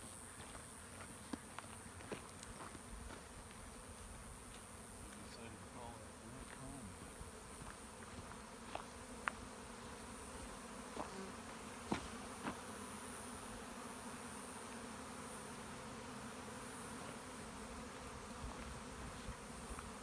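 Honeybee swarm in flight: a steady, faint buzzing of many bees, with a few sharp ticks.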